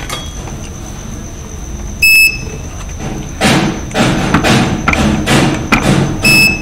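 Two short high beeps from a digital multimeter's buzzer, about two seconds in and again near the end, as its probes test a replacement bridge rectifier that reads good. Between and around them come dull, rhythmic thumps with a low hum.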